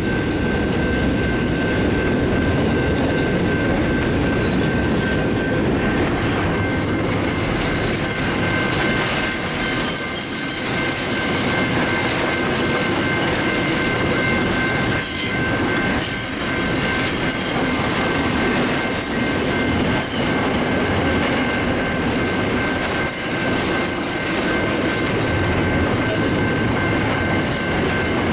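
Train running along the rails with wheels squealing. Two steady high ringing tones persist over the rumble, and sharper high squeals come and go from about eight seconds in.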